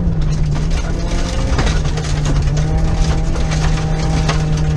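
Suzuki rally car engine pulling at steady, high revs, heard from inside the cabin. Gravel and stones clatter against the underside in scattered knocks as the car runs over the loose sandy track.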